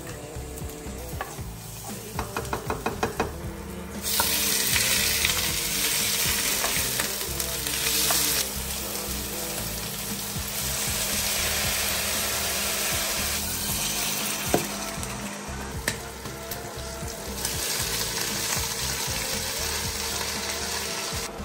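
Onions, garlic and pork frying in a nonstick pan, with a loud sizzle and stirring. A quick run of taps comes just before the sizzle starts, about four seconds in, and the sizzle then rises and falls several times.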